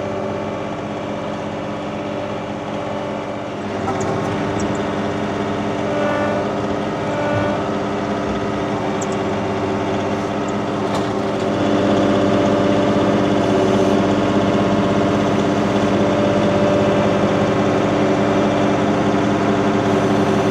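Compact tractor's diesel engine running steadily while the front loader lifts a heavy load, getting louder about 3.5 seconds in and again about 11.5 seconds in as it is worked harder. A few faint clicks sound over it.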